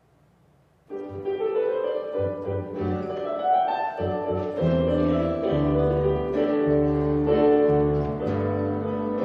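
Instrumental keyboard music, several notes at once over a bass line, starting about a second in and cut off abruptly at the end.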